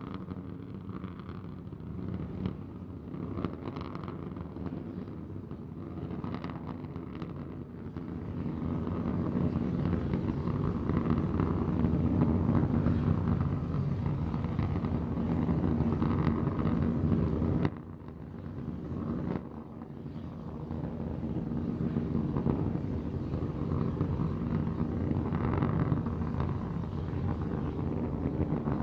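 Roar of Starship SN15's three Raptor methane rocket engines firing during ascent, heard as a steady rumble. It grows louder about eight seconds in, drops away suddenly around eighteen seconds, then builds back up.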